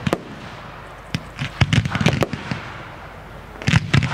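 Fireworks display: shells bursting in rapid volleys of sharp bangs, one volley from about a second in and another near the end, with a lull between.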